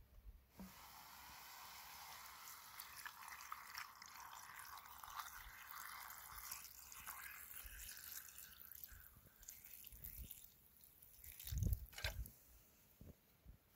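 Water poured from a plastic bottle into a wide metal pan of chicken pieces and vegetables, a steady splashing pour that lasts about ten seconds and trails off. A few dull thumps follow near the end.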